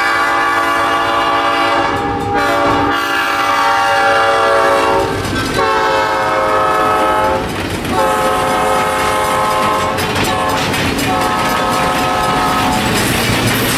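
Diesel locomotive air horn on a passing EMD E8 sounding several long blasts, its pitch shifting as it goes by. Steel wheels clatter over the rail joints as the passenger cars follow, most plainly near the end.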